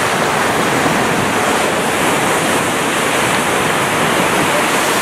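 Pacific Ocean surf breaking and washing up a sandy beach: a loud, steady rush of waves.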